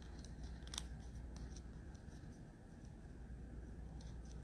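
Faint rustle and light clicks of a trading card being slid into a soft plastic sleeve, with one sharper tick about a second in.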